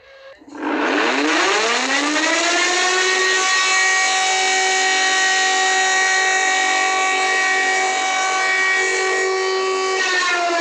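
An emergency alarm siren, used as the alert signal of a mock emergency broadcast, winds up from a low pitch to a steady high wail over about two seconds. It holds that wail, then starts to wind down just before the end.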